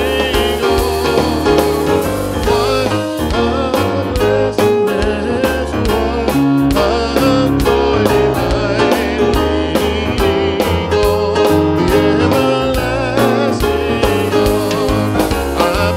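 Live gospel music from a church band: keyboard with drums and bass, playing steadily at an even beat, with singing over it.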